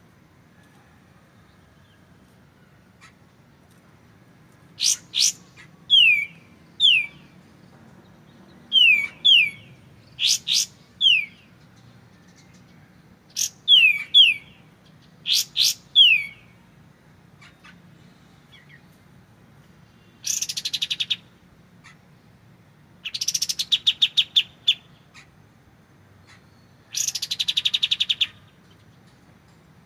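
Kapas tembak (katem) songbird calling: sharp high chips and quick falling whistled notes, often in pairs, then three fast rattling trills of about a second or two each near the end.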